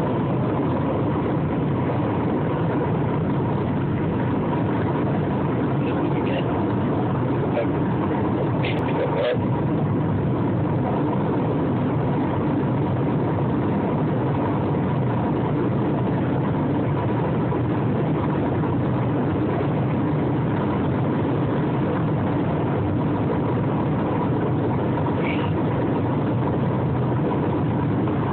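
Steady rumble of a car's engine and running noise heard inside the cabin, with a couple of faint clicks about nine seconds in.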